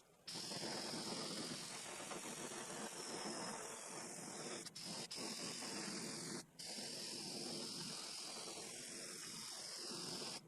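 Airbrush spraying white base-coat paint in a steady hiss. The hiss breaks off briefly three times near the middle as the trigger is let go, and its tone shifts as the spray is swept across the lure.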